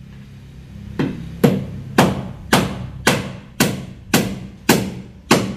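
Hammer driving a nail into a wooden plank: nine sharp, evenly spaced blows, about two a second, starting about a second in.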